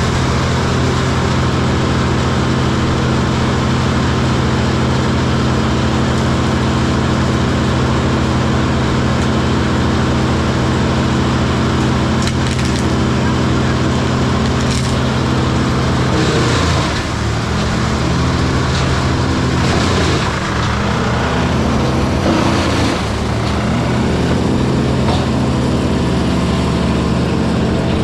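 Wood chipper engine running steadily; from about halfway in its pitch dips and wavers under load as branches are fed, with bursts of crackling and splintering wood.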